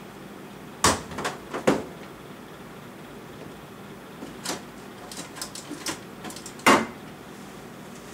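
Sharp knocks and clunks of someone handling a refrigerator: three close together about a second in, a scatter of lighter knocks later, and one loud clunk near the end.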